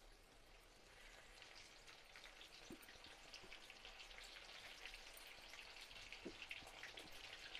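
Coated corn kernels frying in hot oil in a kadhai: a faint crackling sizzle full of tiny pops that slowly grows louder.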